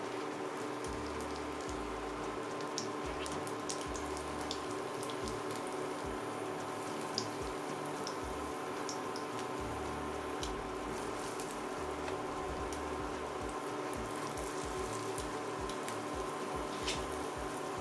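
Pancake batter frying in a pan of hot sunflower oil: a steady sizzle with many small, irregular pops and crackles of spitting oil, over a steady hum.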